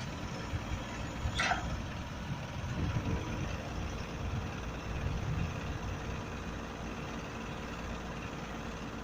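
A vehicle engine running steadily with a low rumble, joined by a faint steady hum about three seconds in. A single brief high squeak sounds about a second and a half in.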